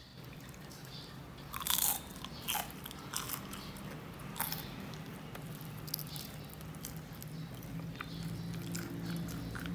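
Crisp fried cibay skin crunching and crackling in a handful of sharp strikes, loudest about two seconds in, with smaller crackles after; the tapioca-filled spring-roll wrapper is still crunchy once cooled.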